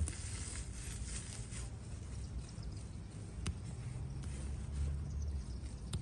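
Cilantro leaves and stems rustling and snapping as sprigs are picked by hand, over a steady low rumble, with a couple of sharp clicks.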